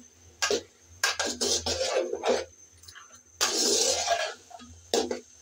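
Spatula scraping and turning chopped mixed vegetables against the sides of a large metal pot in several uneven strokes. The vegetables are being stirred while they braise down with spices.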